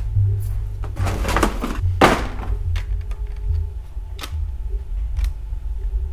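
Handling a portable cassette tape recorder: two short clattering scrapes about one and two seconds in, then single sharp plastic clicks, over a low steady drone.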